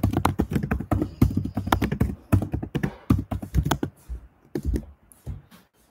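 Typing on a laptop keyboard: a quick run of key clicks that thins out to a few scattered taps near the end.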